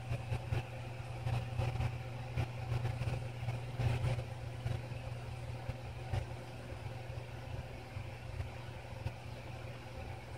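Bench fume extractor fan running steadily with a low hum. A few faint clicks come in the first few seconds.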